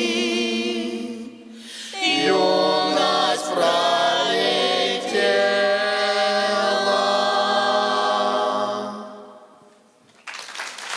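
Choir singing a cappella, several voices with vibrato, closing on a long held chord that fades away about nine seconds in. Audience applause breaks out near the end.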